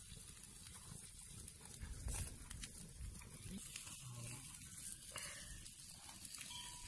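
Faint sizzle and scattered crackles of a wood fire under fish and chicken pieces roasting on a wire grill, over a low rumble.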